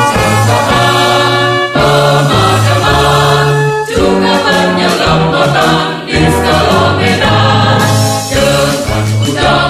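Background music of a choir singing held chords that change every second or two.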